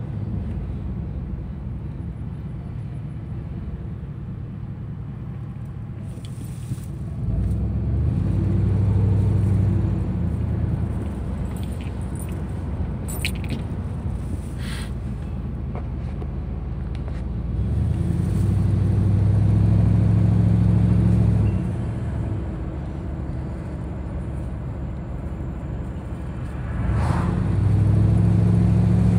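Car engine and road noise heard from inside the cabin while driving. The engine note rises and gets louder three times, about 7 seconds in, around 18 seconds in and near the end, as the car pulls away and speeds up, easing back to a steadier cruising hum in between.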